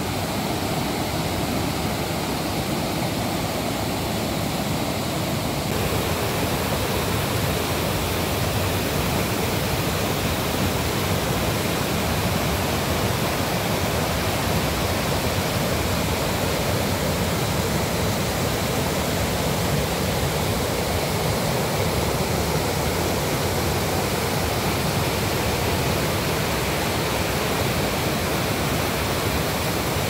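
A small waterfall rushing steadily over tiered rock ledges into shallow pools, a continuous even roar of water, its texture shifting slightly about six seconds in.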